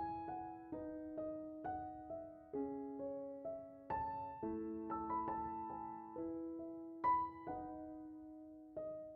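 Background music: a slow, gentle piano melody of struck notes and chords, each note fading after it is played.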